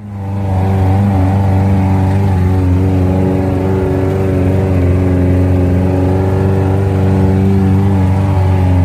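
Suzuki Jimny Katana's engine running loudly at steady revs, a held drone that barely changes in pitch.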